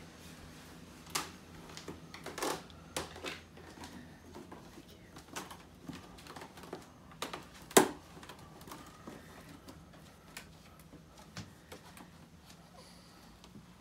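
Irregular light taps, clicks and rustles of the camera being handled against a swaddle blanket, with one sharper knock about eight seconds in, over a faint steady low hum.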